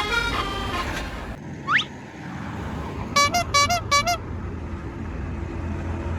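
Telolet-style multi-tone horn: a tune of horn notes stops about a second in, then a short rising whistle, then four quick pitched toots about three seconds in, over a steady low engine hum.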